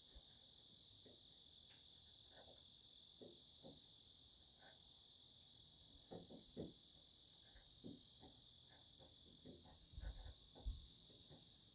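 Near silence with steady, faint cricket chirring, and a few faint clicks and knocks about six and ten seconds in.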